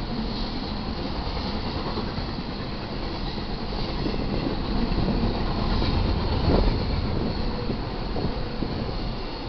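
Double-stack intermodal container cars of a freight train rolling past, a steady rumble of steel wheels on the rails that swells for a few seconds around the middle.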